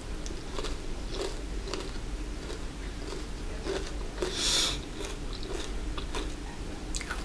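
A person chewing a mouthful of bacon close to the microphone: soft wet clicks and mouth noises throughout, with a brief louder rustly burst about four and a half seconds in.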